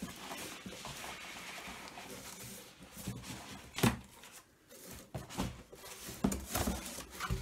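Cardboard shipping box being handled and pulled open: flaps and packing tape rustling and scraping, then several sharp knocks and thumps of cardboard, the loudest about four seconds in.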